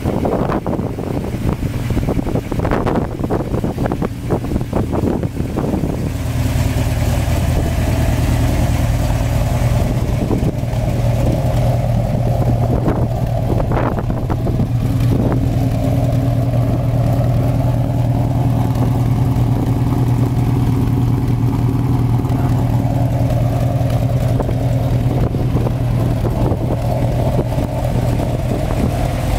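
1970 Dodge Challenger's engine running at idle. It sounds uneven, with scattered knocks, for the first six seconds, then settles into a steady, slightly louder idle that holds to the end.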